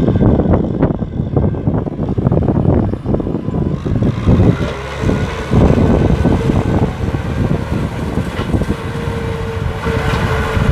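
Kubota tractor's diesel engine running under load while ploughing a rice field, with an uneven low rumble; a steady engine tone comes in about halfway through.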